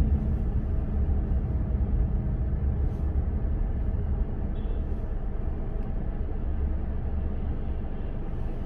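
Steady low rumble of a car being driven, road and engine noise, growing a little quieter toward the end.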